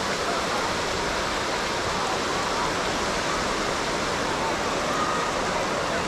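Steady rush of ocean surf, with faint voices of people on the beach over it.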